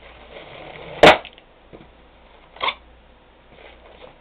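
A single loud, sharp pop about a second in, like a twisted latex modelling balloon bursting, followed by a shorter, fainter rustle of sound a second and a half later.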